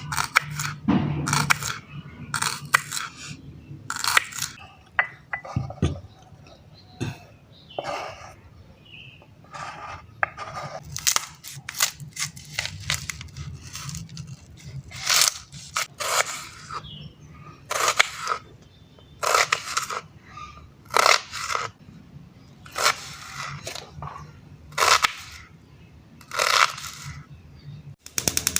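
Kitchen food-preparation sounds: irregular sharp knocks, clinks and scrapes of utensils against a board or bowl, roughly one a second, over a faint low steady hum.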